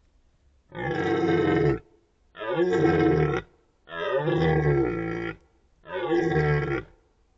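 Red deer stag giving four rutting roars in a series, each about a second or a second and a half long, with short pauses between them.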